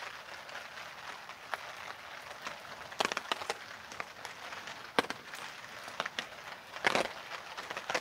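Steady rain falling, an even hiss, with a few sharp irregular taps close by, loudest about three, five and seven seconds in.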